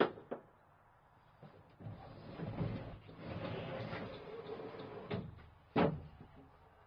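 Wooden scaffold boards dragged out from under a van's raised floor: a sharp knock at the start, a long scraping slide of wood on wood lasting about three seconds, then two knocks as a board comes down onto the ground, the second the loudest.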